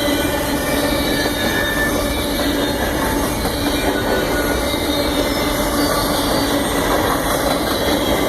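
Union Pacific train rolling past, its cars making a steady, unbroken rumble and rattle on the rails.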